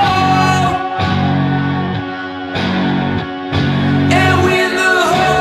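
Background music: a song with guitar, sustained chords changing about every second or so.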